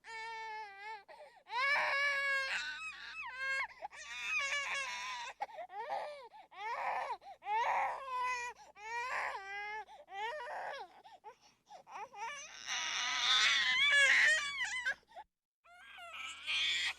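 A high-pitched voice crying in repeated wails, about one a second, each with a wavering pitch, and a longer, louder stretch of crying near the end.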